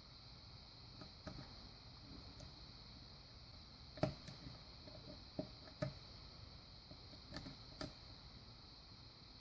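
Faint, scattered small metallic clicks and taps of a lock pick working the pin tumblers of a lock held under tension, about nine in all, the sharpest about four seconds in and just before six seconds, over a steady background hiss.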